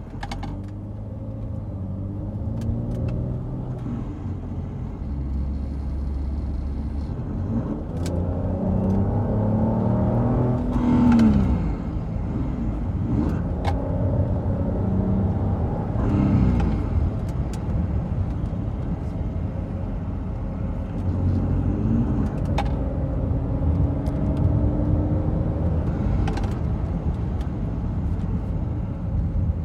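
Volvo XC70 T6 turbocharged straight-six engine pulling through repeated accelerations and lift-offs, its pitch rising and falling several times, with a few short knocks. A strange noise comes with accelerating and releasing the throttle, which the owner says sounds as if something is about to break off.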